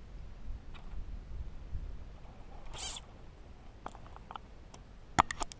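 Fly reel and line being worked while playing a hooked fish: a short hiss about three seconds in, then a quick run of sharp clicks near the end, the first one loudest.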